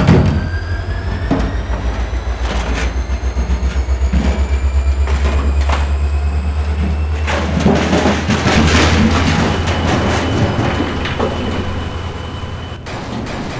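Diesel locomotive engine sound effect, a heavy low rumble pulsing fast and evenly, with repeated crashes and clatter of a shed being smashed. A thin high squeal rises slowly underneath.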